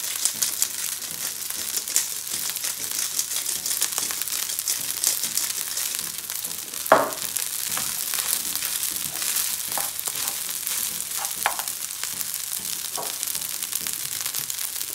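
Rice sizzling and crackling as it is stir-fried in butter in a nonstick frying pan, turned over with a plastic slotted spoon. A sharp knock comes about seven seconds in, with a few lighter knocks later.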